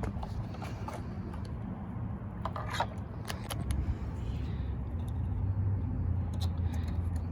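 A few short plastic clicks and scrapes from handling the wiring and electrical connectors on a car's radiator cooling fan assembly, over a steady low rumble.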